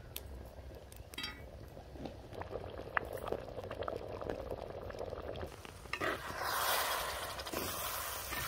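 Jaggery water boiling in an earthen pot over a wood fire, with faint bubbling and small clicks. About six seconds in, a loud hissing sizzle begins as the semolina mixture is stirred in the boiling pot.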